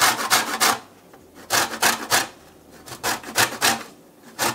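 A lemon being zested on a metal box grater: runs of four or five quick rasping strokes, with short pauses between runs.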